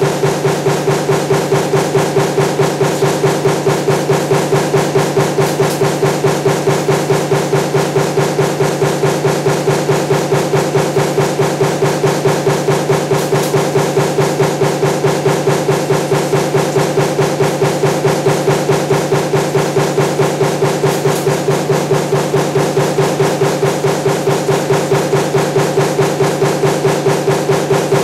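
Power press running a progressive die that stamps table fan motor laminations, cycling continuously at a steady beat of about three strokes a second over a constant machine hum.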